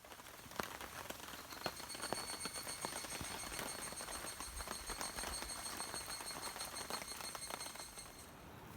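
Steady high-pitched insect song that stops about eight seconds in, with many scattered clicks and rustles.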